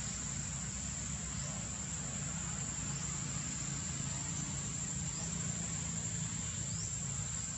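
Insects shrilling: one steady high-pitched tone that never breaks, with a few faint short rising chirps. Beneath it runs a low rumble.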